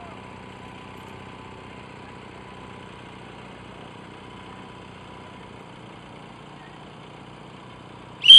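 Outboard motor of a launch running steadily at cruising speed, a low hum with a thin steady whine. Near the end a short, very loud, shrill whistle blast cuts over it.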